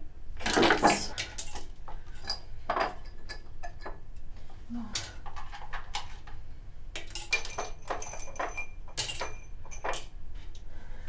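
Small hard toiletry items and metal tweezers clicking and rattling as they are rummaged through on a bathroom shelf, with a busier clatter about a second in.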